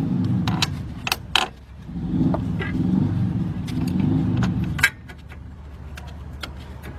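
Metal clinks and scrapes of a bolt and tools being handled while a wheel hub bearing's mounting bolt is started by hand, over a low rumble that cuts off near the end.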